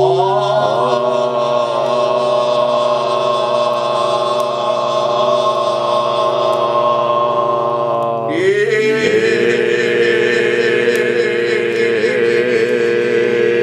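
Chant-like singing in several voices, holding long notes together, which slide to a new set of notes about eight seconds in.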